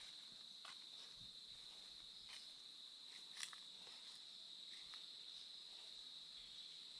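Faint, steady high-pitched drone of insects, with a few light ticks and rustles, the clearest about three and a half seconds in.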